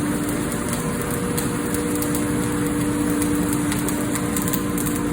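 Electric welding arc running steadily, a continuous crackling sizzle, over a steady machine hum.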